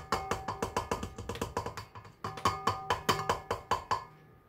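Rapid, regular knocking of a spoon and measuring cup against the rim of a stainless steel stand-mixer bowl as thick pumpkin puree is scraped out of the cup. Each knock rings at the same few metallic pitches. The knocks come in two runs with a short break about two seconds in and stop shortly before the end.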